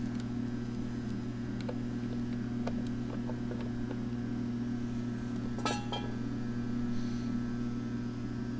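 Hand crank of a cast-iron tilting angle table being turned, its worm gear tilting the table top, giving light scattered metallic clicks with a brighter clink about five and a half seconds in. A steady low hum runs underneath.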